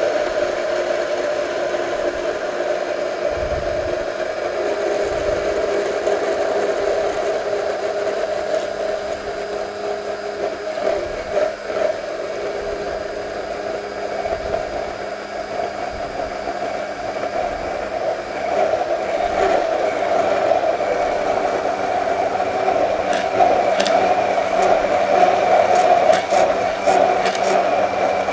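Stick (immersion) blender running steadily in a tall glass beaker, emulsifying hot butter into egg yolk for sauce Hollandaise. Its whir grows louder in the last third, with a few sharp ticks near the end.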